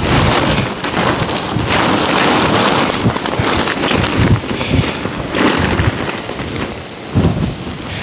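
Strong gusty wind buffeting the microphone: a loud rushing noise with deep buffeting that swells and eases with each gust.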